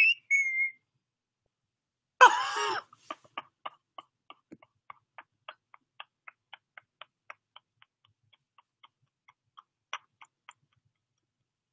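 A young man's stifled laughter: a short shrieking laugh about two seconds in, then a run of high, squeaky gasps about three a second that thin out and stop near the end.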